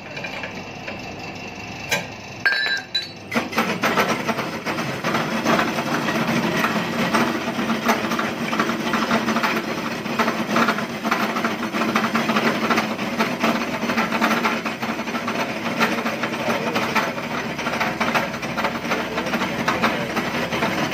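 Steel shell of a hermetic refrigerator compressor being cut open around its seam by a disc cutter on a rotary machine: a continuous metallic grinding clatter that starts about three seconds in, after a few sharp metal clinks.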